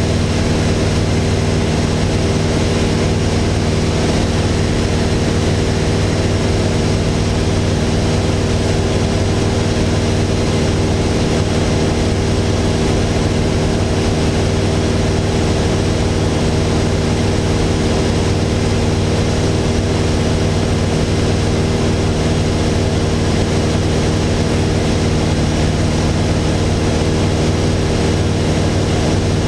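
Mooney M20J 201's four-cylinder Lycoming IO-360 engine and propeller running steadily in flight, heard inside the cockpit as a constant drone with a hiss of airflow over the cabin.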